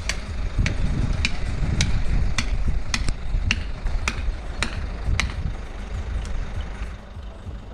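Hand hammer striking at an even pace, a little under two sharp blows a second, over a low engine rumble that is strongest in the first few seconds.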